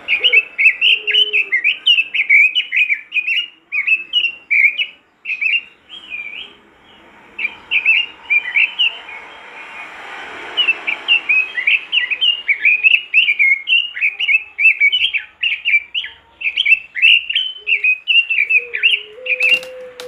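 Red-billed leiothrix (Pekin robin) singing in long, fast runs of short chirping notes, with a break about six seconds in. A single click near the end.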